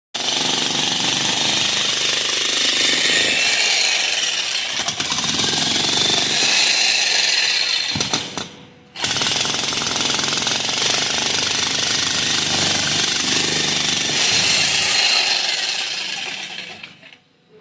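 Ingco 16 kg electric concrete breaker (demolition hammer) hammering continuously. It stops for a moment about halfway through, starts again, and winds down near the end.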